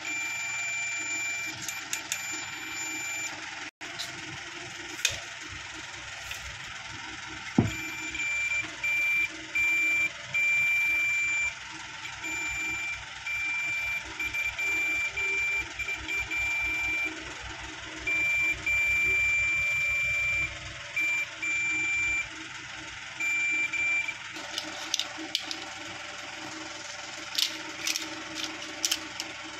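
Digital multimeter's continuity buzzer beeping in one high steady tone, on and off in beeps of varying length as the test probes touch points on a circuit board. Each beep marks a low-resistance path between the probes. Several sharp clicks near the end.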